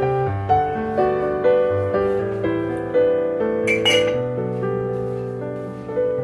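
Slow solo piano music, notes struck about once a second and left to ring. A brief noise about four seconds in as the mug is raised to drink.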